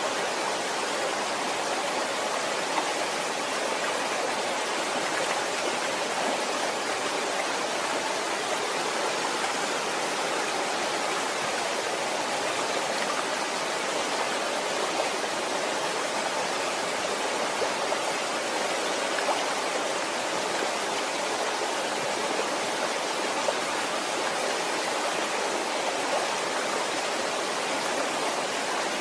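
Waterfall: a steady rush of falling water, even and unbroken, with occasional small splashes.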